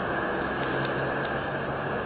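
Steady hiss of outdoor background noise with a faint low hum and a few faint ticks.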